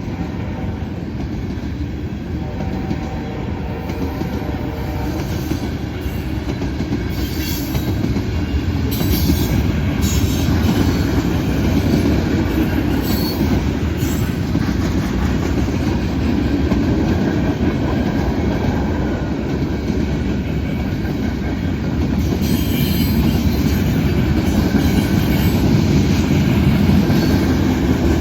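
Canadian Pacific manifest freight train's cars rolling past with a steady heavy rumble and wheel clatter. High-pitched wheel squeals come in several short bursts, a few seconds apart.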